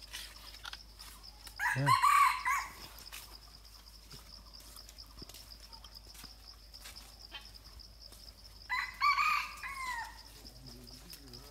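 A rooster crowing twice, about two seconds in and again about nine seconds in, the second crow trailing off in falling notes. A steady high buzz of insects runs underneath.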